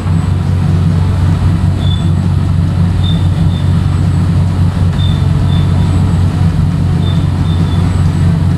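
CNC milling machine running, its cutter working an aluminium billet on a slower-feed finishing pass around the outside. A steady low hum, with short high-pitched whistles every second or two.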